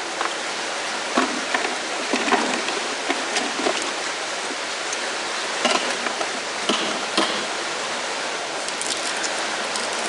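Steady rush of canal water running through a lock, with scattered light clicks and knocks of metal being handled over it.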